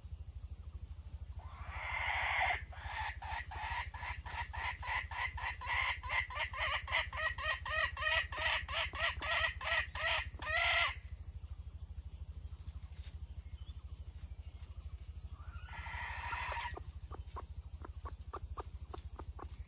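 Wild junglefowl cackling: a drawn-out call, then a long run of quick repeated clucks, about three a second for some eight seconds, ending in a longer note. Another short call comes later, followed by a few faint clicks.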